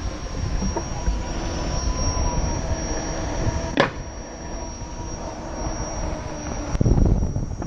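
Electric unicycle rolling over paving: wind buffeting the action-camera microphone and tyre noise make a steady low rumble. There is a faint steady whine, and two sharp knocks, about four seconds in and near the end, with a louder rumble just after the second.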